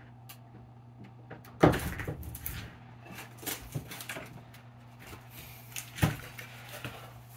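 A door shutting and opening: two sharp knocks about four seconds apart, with smaller clicks and rattles between, over a steady low hum.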